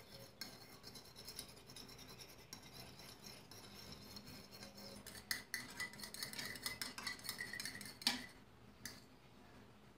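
A metal fork beating eggs in a ceramic bowl: faint rapid clicking and scraping of the fork against the bowl, busier about five seconds in. A sharper clink just after eight seconds, then the beating stops.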